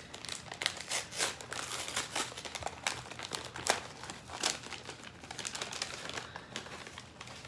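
A folded paper pouch being opened by hand and its contents handled, making a steady run of irregular crinkles and rustles.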